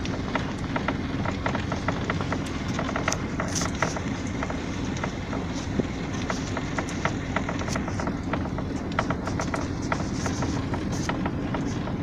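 Footsteps of a person walking on a path, a rapid irregular run of short steps and clicks over a steady low background rumble.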